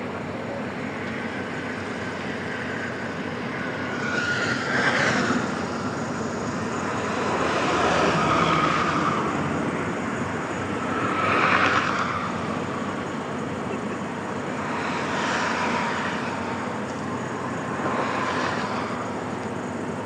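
Toll-road traffic: about five vehicles pass one after another over a steady background noise, each swelling and fading with a whine that drops in pitch as it goes by.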